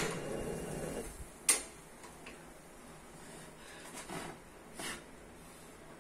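A few isolated sharp metallic clicks and light knocks from a steel wire grill rack and skewers over a gas burner. The loudest comes about a second and a half in, with softer ones near four and five seconds, over a low background.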